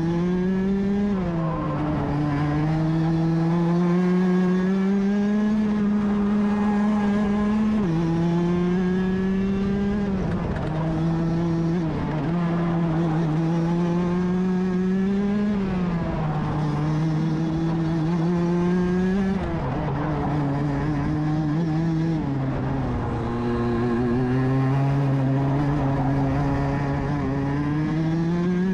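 Rotax DD2 kart's 125 cc two-stroke single-cylinder engine at racing speed, heard on board. Its pitch climbs steadily for a few seconds at a time and then drops sharply, several times over, as the kart runs the straights and corners of the lap.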